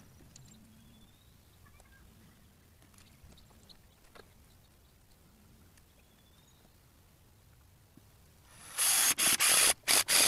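Low background with faint scattered clicks, then about three-quarters of the way in a loud rasping, rubbing noise that breaks into several short strokes in quick succession.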